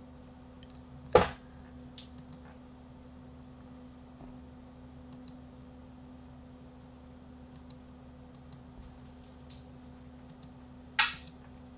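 Computer mouse and keyboard clicks: two sharp clicks, one about a second in and one near the end, with faint scattered ticks between them, over a steady low hum.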